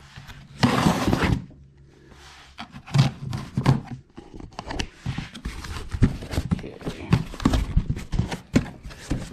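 A cardboard shipping box being opened by hand. A long tearing rip comes about half a second in, then a string of knocks, scrapes and rustles as the flaps and packing are handled.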